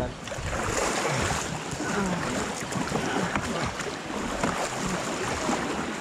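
River water rushing and splashing around an inflatable rubber raft, a steady noisy wash.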